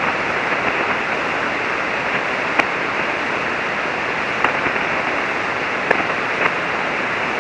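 Shortwave ham receiver in single-sideband mode putting out steady band noise, a hiss with a few faint static crackles, with no signal from the other station coming through: the band has faded out.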